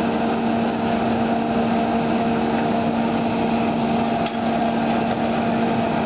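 Small engine of a Hurst hydraulic rescue-tool power unit running steadily at a constant pitch, keeping the hoses to the cutter and spreader under pressure.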